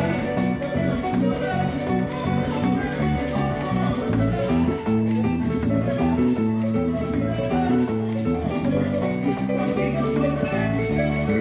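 Latin band playing, with a prominent electric bass line moving note to note under a steady, fast percussion rhythm.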